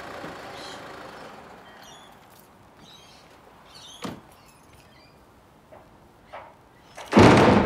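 A vehicle engine dies away at the start, then faint bird chirps and a single sharp click about four seconds in. Near the end comes a loud, short thump.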